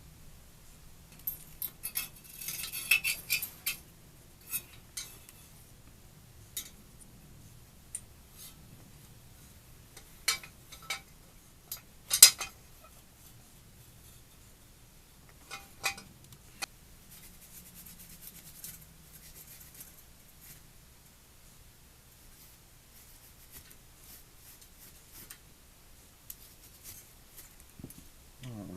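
Scattered metallic clicks and clinks of small metal parts and tools being handled while a gas water heater's thermocouple and pilot bracket are worked on. A busy patch comes about two to four seconds in, and the sharpest clink about twelve seconds in.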